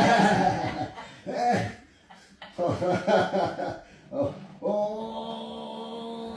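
Short, irregular bursts of voice, then a single steady held sung note, chant-like, lasting about three seconds.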